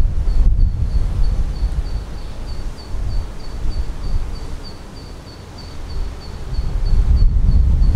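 Low, uneven rumble of wind buffeting the microphone, dipping in the middle and building again near the end. Over it an insect repeats a faint high chirp about three times a second.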